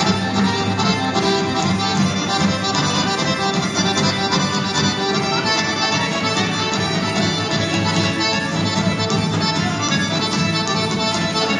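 Accordion-led Serbian folk dance music with a steady, even beat.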